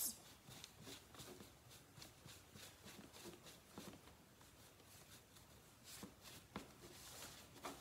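Faint, irregular rubbing and soft scuffs of a cotton rag wiping white wax across a painted moulded panel.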